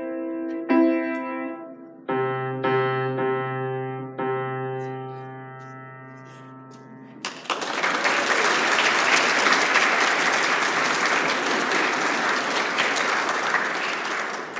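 Yamaha grand piano playing the final notes of a piece, ending on a low chord that rings and fades away. About seven seconds in, an audience breaks into applause that goes on for about seven seconds.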